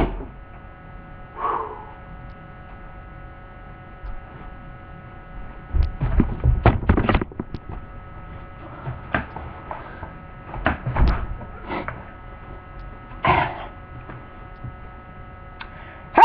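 Steady electrical hum on the recording, broken by clusters of knocks and bumps about six seconds in and again around eleven seconds as the webcam is handled up close.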